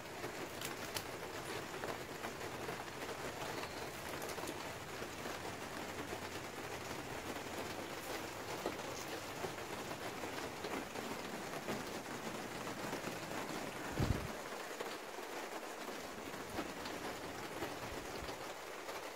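Steady rain falling on plastic greenhouse panels, an even hiss. There is one brief low thump about fourteen seconds in.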